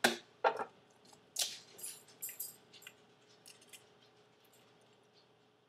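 An egg being cracked over a plastic food processor bowl: a couple of sharp clicks, then shell crackling and small taps that die away after about three seconds.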